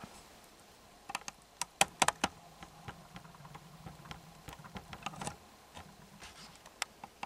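Wood campfire crackling, with irregular sharp snaps and pops, a quick run of louder ones about two seconds in.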